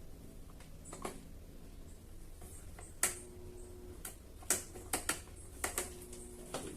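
Irregular sharp clicks and knocks from parts of an electric fan being handled, about eight in all, several followed by a brief ringing tone, over a faint steady hum.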